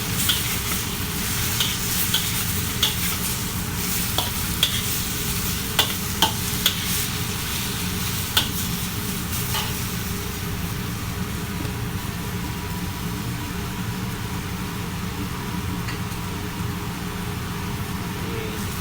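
Chicken pieces sizzling as they sauté in a hot pan, with a metal spatula clicking and scraping against the pan at irregular moments for about the first half, then steady sizzling alone. A steady low rumble runs underneath.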